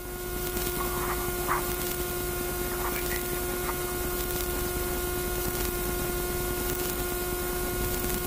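Steady hiss and a constant electrical-sounding hum with a few higher overtones inside a small aircraft cockpit, with faint voice fragments in the first few seconds.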